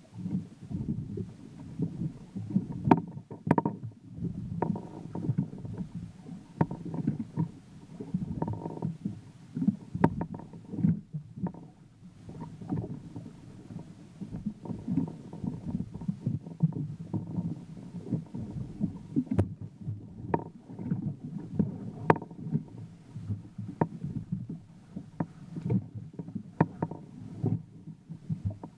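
Choppy water slapping and sloshing against a small boat's hull: an irregular low churning with sharp knocks scattered throughout.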